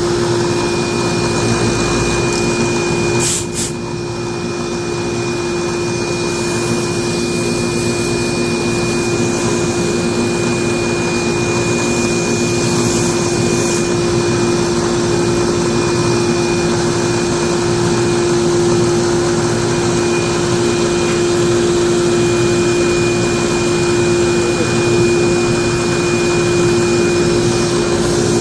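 The electric motor of a drill press converted into a lathe, running steadily with a constant hum and a faint high whine. There is one brief click about three seconds in.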